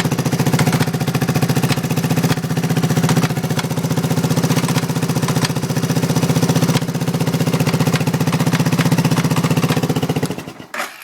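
Suzuki Savage LS650's 652 cc single-cylinder four-stroke engine running steadily with an unusual knock, which the owner has ruled out as the cam chain tensioner or the decompression solenoid. The engine stops about ten seconds in, followed by a single click.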